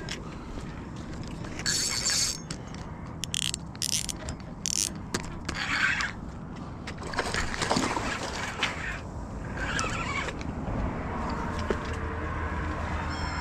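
Fishing reel mechanism whirring and clicking in short irregular bursts, over a steady low hum.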